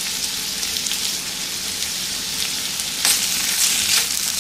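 Sliced carrots sizzling in melted butter in a steel pan. About three seconds in, a spatula starts stirring and scraping them in a few quick strokes.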